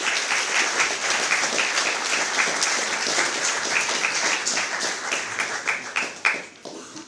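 Audience applauding: a dense patter of many hands clapping that thins to a few scattered claps near the end.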